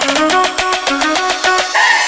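Background music with a fast, steady beat and the bass pulled out, building toward a drop.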